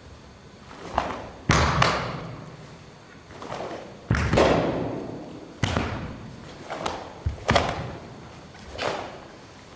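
A series of sharp snaps and thuds from a karate kata being performed: the cotton gi snapping on punches and blocks and bare feet striking the floor as the stances change. They come at uneven intervals, some in quick pairs, and each echoes in the large hall.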